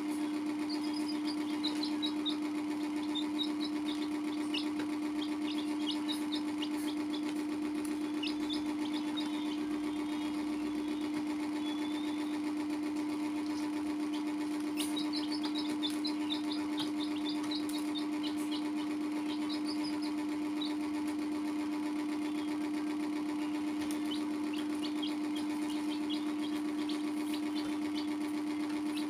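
A steady machine hum on one unchanging tone, with young chicks peeping in short scattered runs over it.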